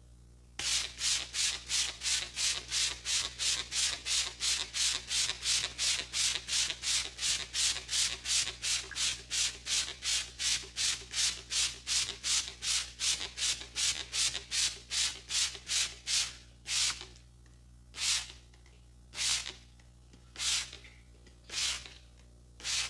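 A masseur's hands rubbing in brisk, even strokes during a massage, about three strokes a second. After about fifteen seconds they slow to single strokes roughly a second apart.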